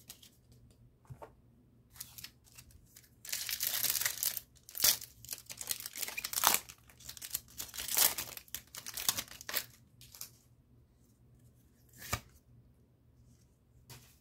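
Pokémon trading card booster pack's foil wrapper being torn open and crinkled by hand: a run of rips and rustles from about three seconds in to about ten seconds in, loudest around the middle. A short tap about twelve seconds in.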